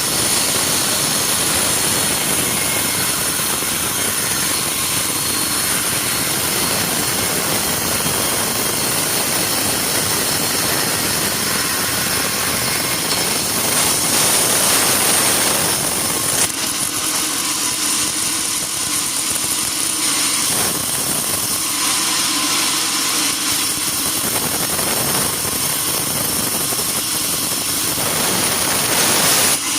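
Sawmill machinery running loudly and steadily, with a noisy, rushing sound. About halfway through it turns thinner, leaving a steady hum, and it swells briefly near the end.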